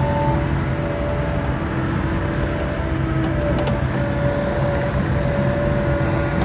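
John Deere 316GR skid steer's diesel engine running steadily, with a thin whining tone that comes and goes over it.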